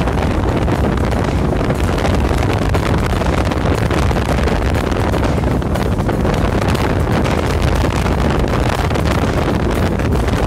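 Strong wind and heavy rain, the gusts buffeting the microphone with a loud, constant low rumble under an even hiss.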